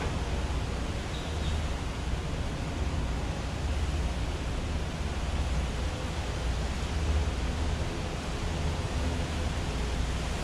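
Steady, even background noise with a fluctuating low rumble underneath and no distinct events.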